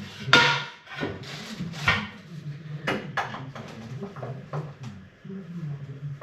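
Knocks, scrapes and rubbing of hard fittings being handled against a wall, in a series of short irregular strokes with the loudest knock about half a second in.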